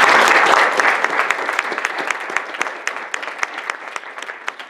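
Audience and panel applauding, loudest at the start, then thinning out to scattered individual claps near the end.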